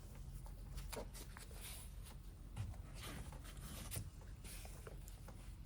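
Faint rustling and scattered light clicks of hands handling a foil-lined insulated window cover and small magnets, over a low steady hum.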